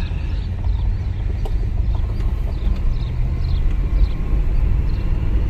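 Steady low rumble of engine and road noise inside the cabin of a 1971 Chevrolet Caprice sedan cruising along a road.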